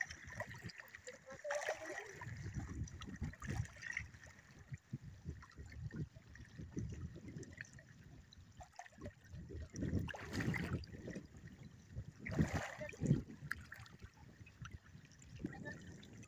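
People wading through shallow water, with irregular splashing and sloshing of water around their legs; louder splashes come about ten seconds in and again around twelve to thirteen seconds.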